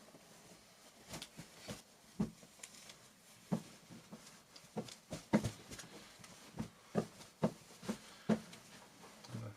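A string of irregular light knocks and clicks, as of household objects being handled and set down, with the busiest and loudest run in the second half.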